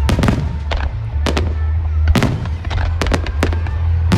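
Starmine fireworks finale: a fast barrage of shells bursting and cracking, about a dozen reports in quick succession, over music played through loudspeakers with a steady low bass.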